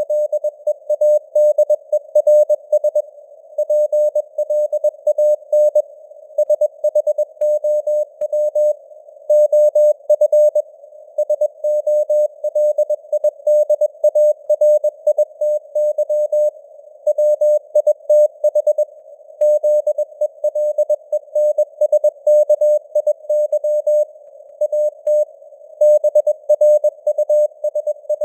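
Morse code at 21 words per minute, spelling out news headlines: a single mid-pitched beep keyed on and off in dots and dashes. It sits in a narrow band of simulated radio noise, and the signal strength varies as if fading (QSB).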